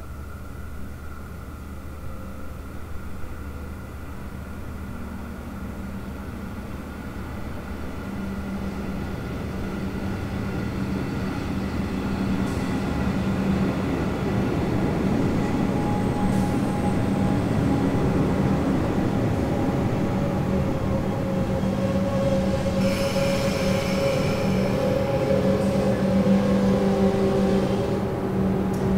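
A Metro Trains Melbourne X'Trapolis electric suburban train arriving at a platform. Its rumble grows louder as it approaches, then it runs alongside with wheel and motor noise. In the last few seconds a whine falls in pitch and a high hiss and squeal come from the brakes as it slows to a stop.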